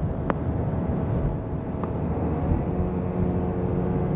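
Steady road and engine noise of a car driving at highway speed, heard from inside the cabin. A low steady hum joins in about two-thirds of the way through, and there are two faint clicks.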